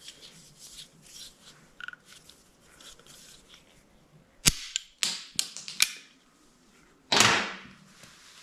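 Sharp metal clicks and clanks from handling a sawmill blade guide roller and its parts: a few quick clicks past the middle, then a longer clatter near the end.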